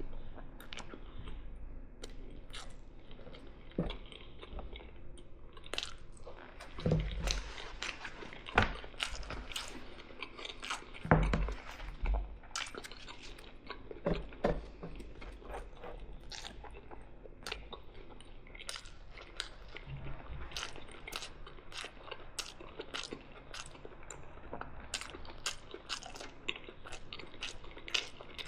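Close-miked chewing and biting: irregular wet mouth clicks and crunches from a person eating mici, fried eggs and fries, with a few louder bites or knocks around the middle.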